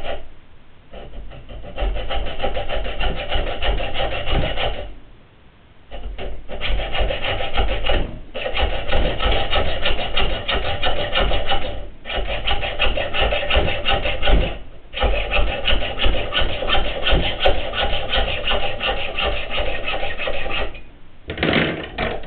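Hand hacksaw cutting a metal tube clamped in a bench vise, sawing the slots of a split collet bearing extractor. It saws in several long runs of quick back-and-forth strokes with brief pauses, and stops about a second before the end.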